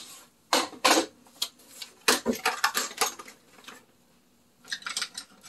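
Makeup containers and tools being handled and set down, clicking and clattering in three short bursts of sharp knocks.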